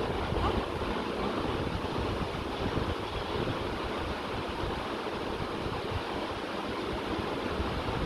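Steady rushing background noise with a fluttering low rumble and no distinct events.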